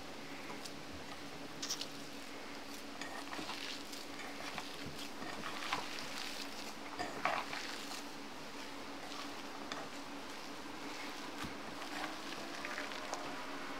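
Boiled potatoes squashed and mashed by hand in a stainless steel bowl: irregular soft squishing and crumbling, with scattered sharp clicks and taps against the metal. A steady low hum runs underneath.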